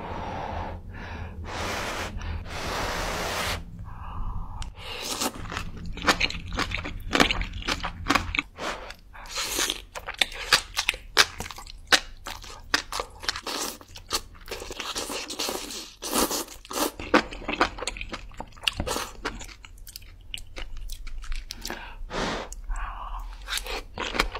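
Close-miked eating of spicy noodles: a couple of long slurps in the first few seconds, then steady chewing made up of many sharp, irregular mouth clicks and smacks.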